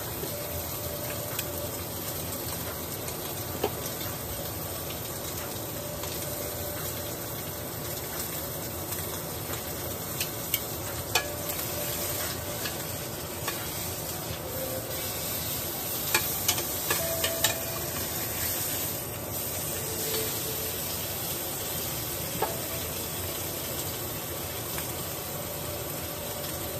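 Ribeye steak sizzling steadily in a very hot pan as it sears. A few sharp clicks and taps of tongs against the pan come through it, most of them past the middle.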